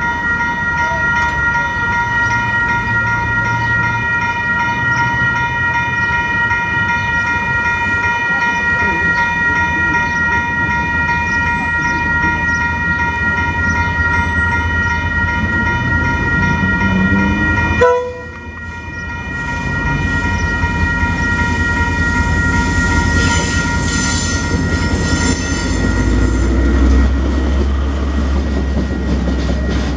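Level crossing bells ringing steadily as a KiwiRail DL-class diesel-electric locomotive hauls a container freight train through the crossing. Near the end the wagons' wheels clatter rhythmically over the rails under a low rumble.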